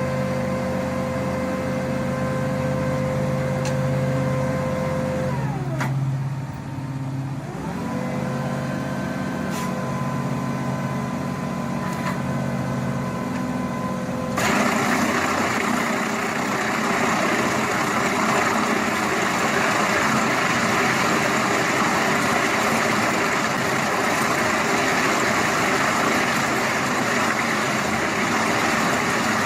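Heavy machine engine running steadily. About six seconds in its pitch drops and climbs back, as if throttled down and back up. At about fourteen and a half seconds the sound switches abruptly to a louder, rougher engine that runs on steadily.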